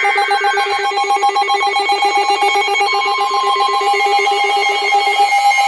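Electronic emergency alert tones: several overlapping steady pitches, each pulsing very rapidly in a buzzing, ringing alarm. One of the alarms drops out about five seconds in.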